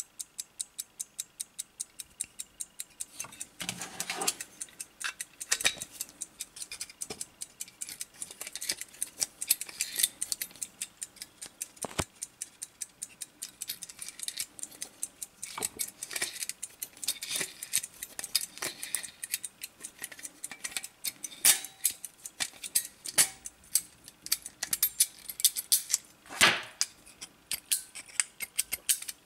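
Platform balance-wheel escapement of a Soviet marine wall clock movement ticking steadily at about five ticks a second. Louder irregular clicks and rattles come over it as the bare movement is handled and a winding key is worked in it.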